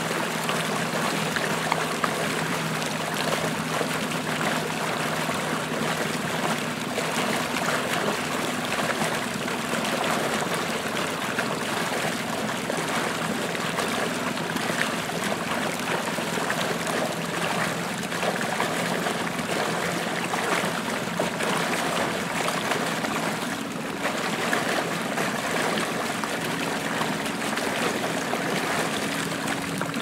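Small boat motor running at a steady speed as the boat pushes through water: a constant low engine hum under loud, continuous rushing and splashing water.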